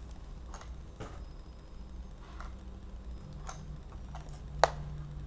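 Light ticks and taps of a sealed toy set's packaging being handled and turned in the hands, with one sharper click a little before the end.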